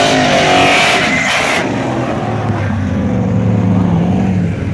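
Cammed 1994 Camaro LT1 5.7-litre V8 with its exhaust cutout open, revving high with a harsh hiss for about a second and a half. It then breaks off abruptly into a low, lumpy rumble as the car rolls at low speed.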